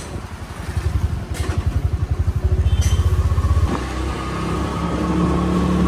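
Auto-rickshaw's single-cylinder engine running with a fast, even pulsing beat as it drives, heard from inside the open passenger cabin. The beat grows louder over the first few seconds, drops back about two-thirds of the way through and then picks up again, with a few sharp clicks along the way.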